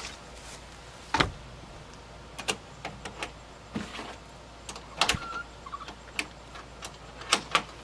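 Irregular knocks and clicks from handling the chicken nesting boxes and their liners, about a dozen sharp taps scattered through, the loudest about a second in.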